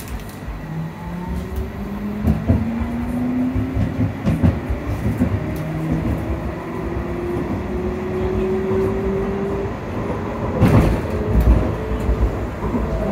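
Inside a CAF Urbos 3 tram as it accelerates: the traction motor whine climbs steadily in pitch for several seconds over the rumble of wheels on rail. A loud clatter from the running gear comes about ten and a half seconds in.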